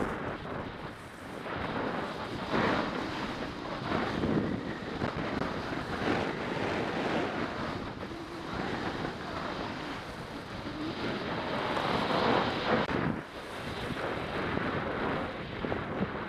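Skis scraping and carving over hard-packed, icy piste snow, with wind rushing over the microphone. The noise swells and fades every couple of seconds.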